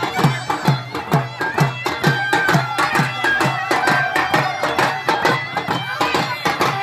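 Traditional music played loudly: a drum beating steadily at about two strokes a second, each stroke with a low falling boom, under a high, wavering melody line.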